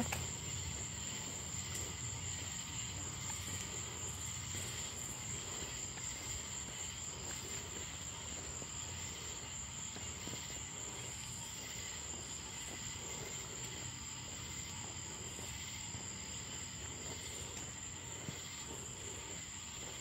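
Night chorus of crickets: a steady, unbroken high-pitched trill, with fainter insect buzzing beneath it.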